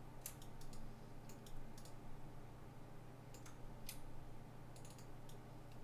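Faint, irregular clicking of a computer mouse and keyboard, about a dozen scattered clicks, over a steady low electrical hum.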